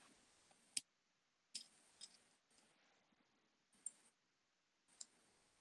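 Near silence with about five faint, scattered clicks from a rotating fly-tying vise and bobbin being handled as thread is wrapped.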